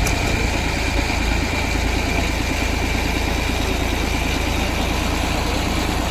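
Diesel engine of heavy farm machinery idling steadily, with an even, rapid low chugging.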